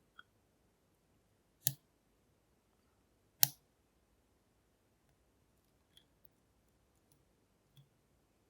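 Lock pick and tension wrench working the pins of a half euro cylinder: scattered sharp metallic clicks, two louder ones around a second and a half and three and a half seconds in, then a few faint ticks.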